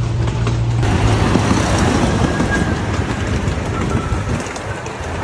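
Miniature amusement-park train running along its track. A steady low hum gives way, about a second in, to a louder rumble and rattle of the cars rolling on the rails.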